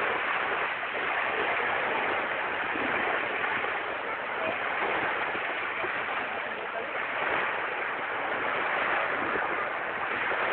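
Small waves breaking and washing up the beach: a steady rush of surf with slight swells in level.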